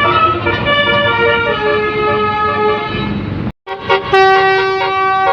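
Bus "telolet" multi-tone musical horn playing a melody of held notes over the bus's engine rumble. It cuts out for a moment about three and a half seconds in, then a second tune starts with a long steady note.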